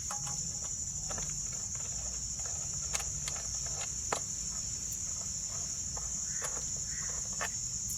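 Steady high crickets' trill with scattered light clicks and taps of a hand tool undoing the screws of the engine cover.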